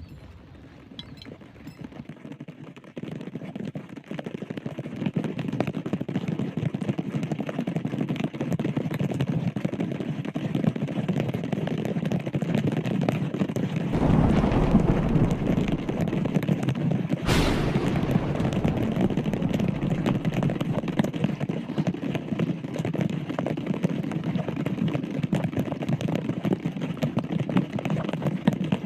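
Heavy rain falling, a dense crackle of drops that builds over the first few seconds and grows heavier about halfway through. One sharp crack comes a little after the middle.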